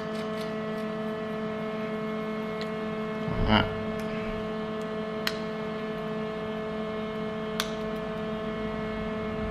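Steady electrical mains hum, with a few faint light clicks of small steel parts (bolt, washers, nut) being handled and fitted onto bicycle sprockets, and one short louder knock about three and a half seconds in.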